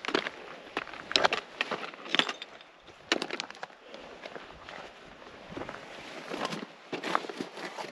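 A hiker's footsteps on a mountain trail: uneven, noisy steps and scuffs, roughly one a second.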